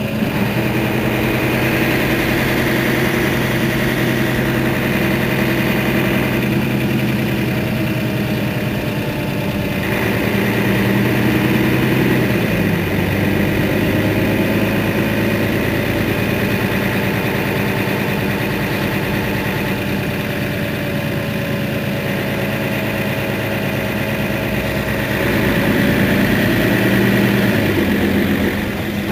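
Mercedes-Benz Citaro city bus engine idling steadily while the bus stands at a stop. A higher whine comes and goes a few times, and the engine sound swells for a few seconds near the end.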